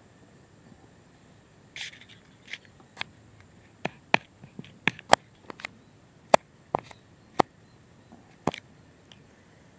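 Bare feet walking over dry grass and stubble: a scattered run of sharp crackles and snaps, about a dozen spread unevenly over several seconds, with brief rustles near the start and near the end.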